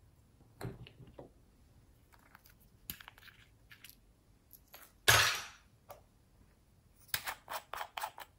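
Small plastic topping containers handled by hand: scattered light clicks and taps, one louder sharp snap with a short rush of noise about five seconds in, and a quick run of clicks near the end as a lid is worked off a pot of glitter.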